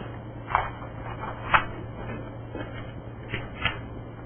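Papers being handled and turned over at a meeting table: a few short, sharp rustles and taps, about four in all, over a steady low hum.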